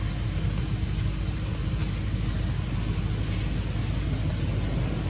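Steady low rumble with a lighter hiss over it, outdoor background noise without any distinct events.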